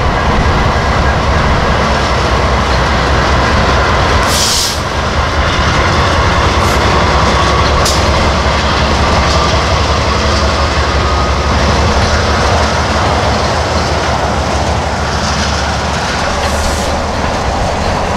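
Loaded tank cars of a freight train rolling past close by: a steady rumble and clatter of steel wheels on the rails. Brief high hisses come about four seconds in and again near the end.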